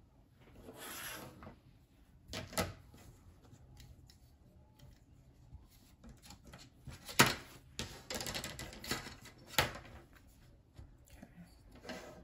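Sheet of cutaway embroidery stabilizer being rustled and handled on a cutting mat, with scattered light clicks and a few sharp clacks, the loudest about seven seconds in.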